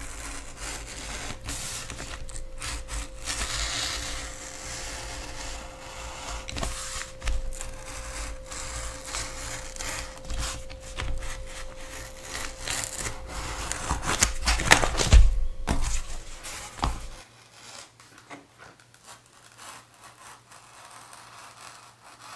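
Craft knife slicing through EVA foam along a paper template, in irregular short scraping strokes. The loudest strokes come past the middle, and it goes much quieter near the end.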